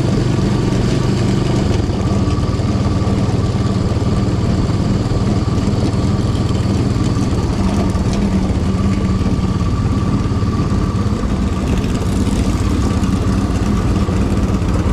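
Vehicle engine running steadily at low speed, with a faint steady whine above it.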